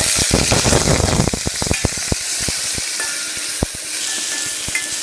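Thuthuvalai (Solanum trilobatum) leaves going into hot sesame oil in a pan and sizzling loudly, the sizzle strongest in the first second or so and then settling. They are stirred with a utensil that clicks and scrapes against the pan repeatedly.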